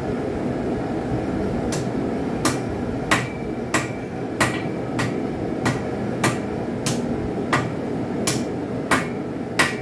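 Hand hammer striking a hot railroad-spike knife blade on an anvil in steady, evenly spaced blows, about three every two seconds, starting about two seconds in. These are light flat planishing hits that smooth and thin the blade.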